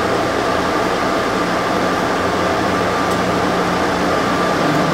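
Steady cabin noise inside an SFO AirTrain people-mover car as it pulls away from a station along its guideway: an even hum with a faint steady whine.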